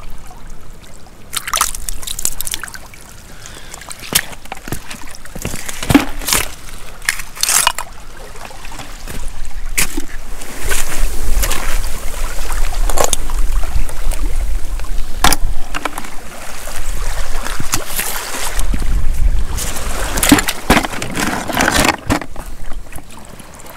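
Shallow rock-pool water splashing and trickling, with scattered knocks and rustles as wet seaweed and stones are moved by hand.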